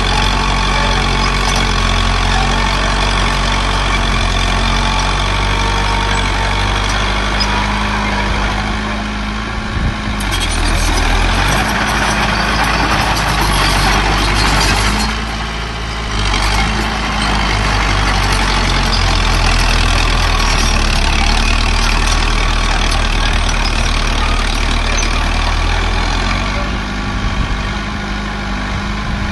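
Diesel engines of earthmoving machinery running steadily, with a brief dip in level about halfway through.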